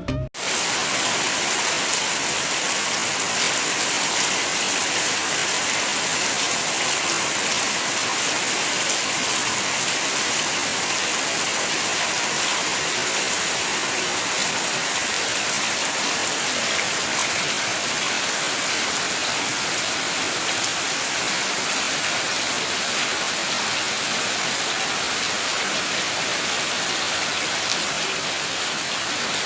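Heavy rain pouring down in a steady, dense hiss that holds even throughout.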